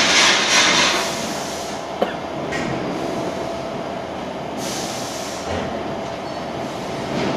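Electric barrel pump running steadily while it pumps thick paste out through its spout: a constant motor hum with a whirring hiss that swells in the first second and again about five seconds in. A single sharp click about two seconds in.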